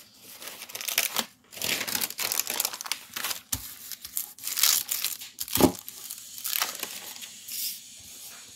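Paper rustling and crinkling as sheets of coffee-stained collage paper and a glossy flyer are handled and shuffled on the desk, with a couple of soft knocks about halfway through; it settles down near the end.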